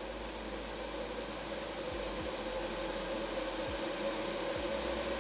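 Inline duct fan, the blower for a ribbon-burner forge, running on its top speed setting with a steady whir and hum that slowly grows louder as it winds up to speed.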